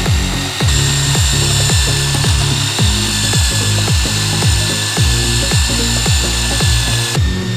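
Background electronic dance music with a steady thumping beat and a held bass line.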